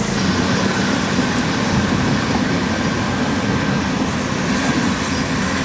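A large engine running steadily, a low even hum with no change in pitch.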